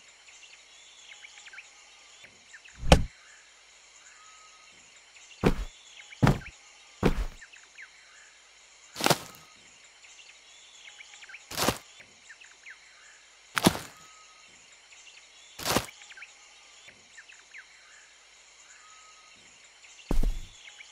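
A series of nine sharp thuds, spaced irregularly a second or two apart, over a faint cartoon outdoor ambience of birds chirping.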